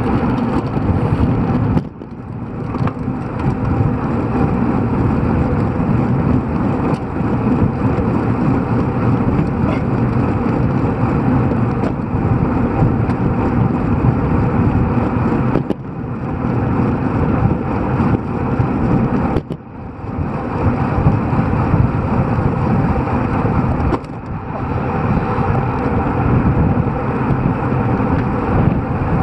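Wind rushing over the microphone of a camera on a moving road bike, mixed with tyre and road noise. The noise drops away briefly four times.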